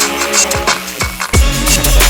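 Electronic dance music with a steady beat, its heavy bass coming in about a second and a half in.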